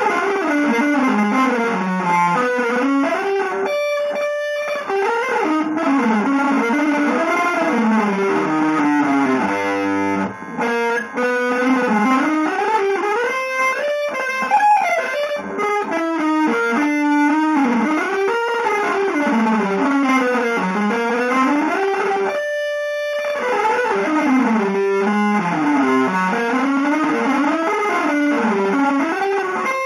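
Electric guitar playing fast, winding single-note runs that climb and fall almost without pause, with a briefly held note about four seconds in and again near two-thirds of the way through.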